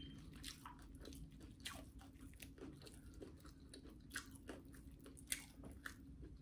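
Quiet, close-up chewing of crispy fried chicken: scattered soft crunches and mouth clicks over a faint steady hum.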